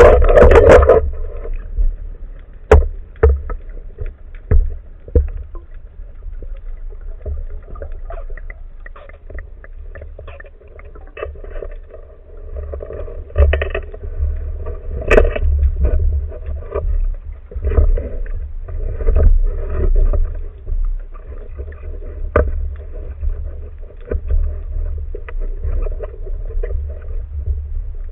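Muffled, steady rumble of water on a spearfisher's camera, with swells every second or two and scattered sharp clicks and knocks.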